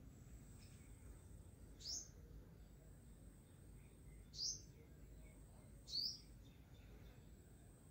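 A bird chirping three times, each a short rising chirp, about two seconds apart, over a near-silent background.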